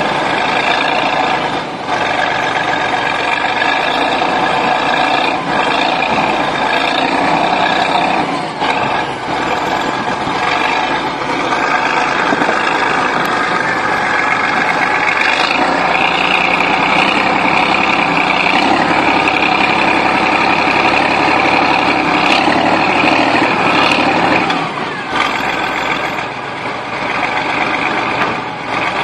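Bulldozer's diesel engine running hard and steadily, with a few brief knocks.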